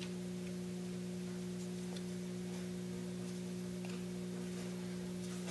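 Steady electrical mains hum with a few faint light clicks as a small ball bearing is worked by hand into the bored pocket of an aluminium part.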